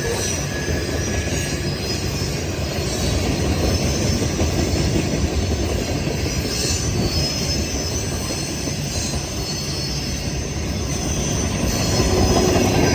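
Freight train rolling past: a steady rumble of steel wheels on the rails, with brief high wheel squeals about seven seconds in and again near the end.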